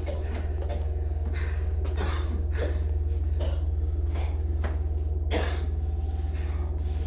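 A man's heavy, gasping breaths, in quick uneven strokes with a sharper gasp or cough about five seconds in, over a low steady hum.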